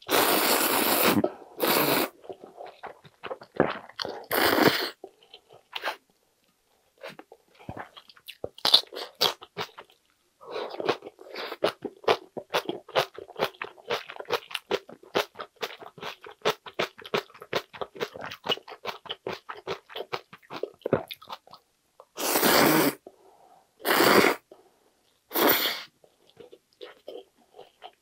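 Close-miked eating of ramen noodles: a few loud slurps of noodles near the start, then a long stretch of rapid wet chewing, then three more loud slurps near the end.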